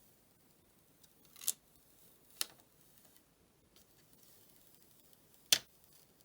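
Three sharp, small clicks of phone-repair tools and parts being handled, about a second apart and then a longer gap before the third, loudest one.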